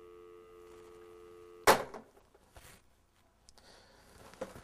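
Telephone dial tone, a steady two-note hum from the handset on a line that has gone dead. About a second and a half in, the handset is banged down on its cradle with one sharp clack that cuts the tone off. Faint handling sounds and a small click follow near the end.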